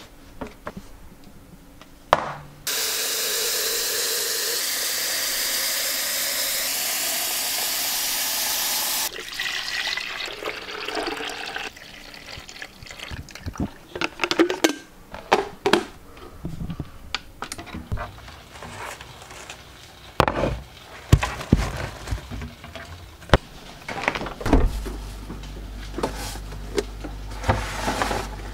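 An electric blade coffee grinder runs steadily for about six seconds. Then water is poured into a drip coffee maker, with kitchen clatter, and a low hum starts near the end.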